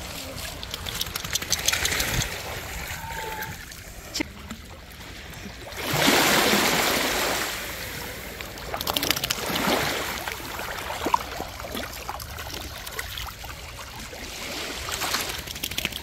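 Shallow seawater splashing and lapping as a dachshund wades and paddles through it, with louder rushes of water about six and ten seconds in.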